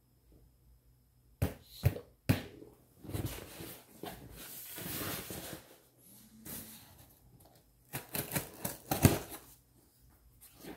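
Handling sounds as a metal utility knife is picked up and worked beside a cardboard box: a series of sharp clicks and knocks, a few in the first couple of seconds and a quick cluster near the end, with light scraping and rustling between.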